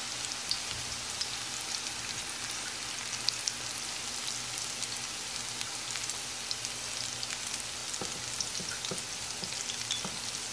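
Onion pakoda (batter-coated onion slices) deep-frying in hot oil: a steady sizzle with many small scattered pops and crackles.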